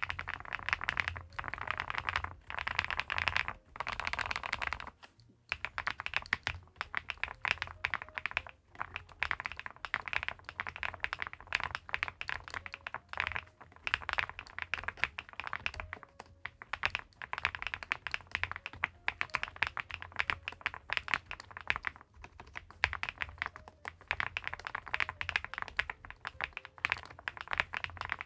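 Fast, continuous typing on a Weikav Record Alice V2, an Alice-layout mechanical keyboard with an aluminium case and leaf-spring gasket mount: a dense run of keystrokes, broken by a few short pauses.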